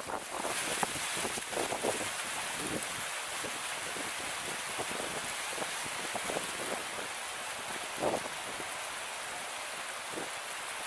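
Rows of small fountain jets bubbling and splashing into a shallow pool, a steady rain-like patter of water with scattered brief splashes.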